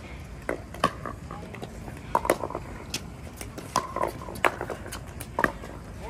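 Pickleball paddles hitting plastic balls: sharp pops at uneven intervals about a second apart, some loud and some fainter.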